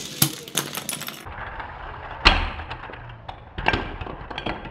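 Small plastic Lego-brick toy car clattering across a ceramic tile floor and crashing: rapid clicks in the first second, then sharp knocks of plastic on tile, the loudest about two seconds in and another near four seconds, as the car breaks apart.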